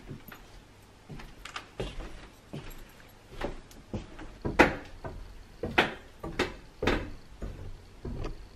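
Everyday household handling sounds: a run of irregular knocks and clicks, the loudest about four and a half seconds in.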